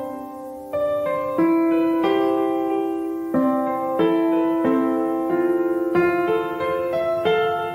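Background music: a slow, gentle piano piece with notes and chords struck about once a second and left to ring.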